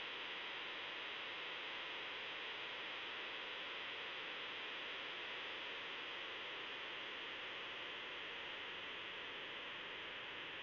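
Steady, even hiss like static, with no engine note, clanks or other distinct sounds.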